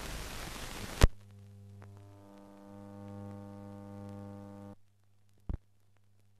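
Old film soundtrack noise. A second of hiss ends in a loud splice click. Then comes a steady electrical mains hum that swells into a buzz with many overtones and cuts off abruptly, leaving a faint hum and one more click.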